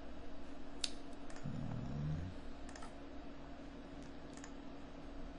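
Computer mouse clicks, about six short sharp clicks with some in quick pairs, over a steady low background hum.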